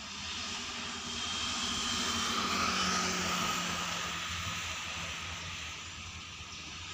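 Distant steady engine drone that swells about two to three seconds in, then eases off.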